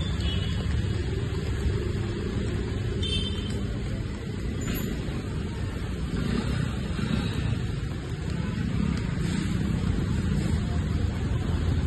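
Hydraulic scissor lift lowering a loaded platform, giving a steady low hum and rumble with no breaks.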